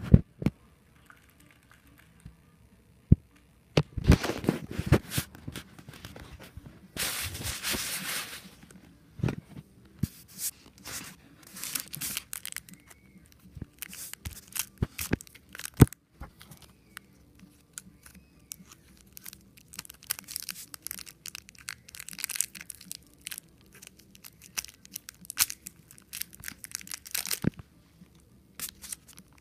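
Plastic wrapper of a Jolly Rancher hard candy crinkling and rustling in irregular bursts, with short quiet gaps between them.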